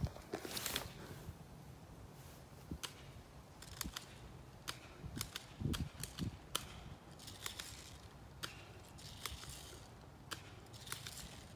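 Faint sharp pops of airsoft guns firing, scattered irregularly about once a second, with a dull thud about five to six seconds in.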